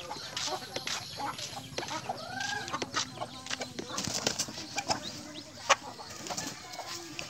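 Chickens clucking, with one drawn-out call that rises and falls about two seconds in, over scattered short clicks and rustles.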